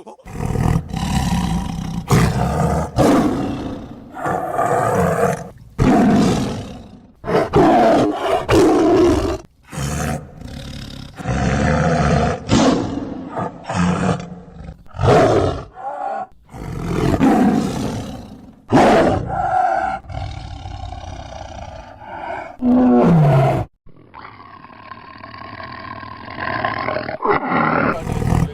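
A series of loud animal roars, one call after another with short gaps, from several clips cut together.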